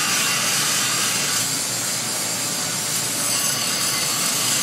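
Steady hiss of a TIG welding arc on a pipe joint.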